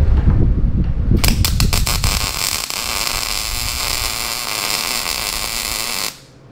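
MIG welder laying a tack weld with mild steel wire on 3/4-inch stainless round stock: the arc strikes with a few sharp pops about a second in, then runs as a steady hiss for about five seconds and cuts off suddenly near the end. A low rumble fills the first second.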